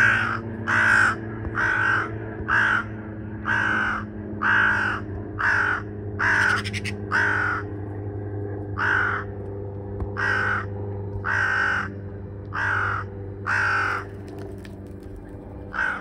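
A crow giving a long series of harsh, evenly spaced caws, roughly one a second, that thin out near the end. It is scolding a cat on the ground nearby.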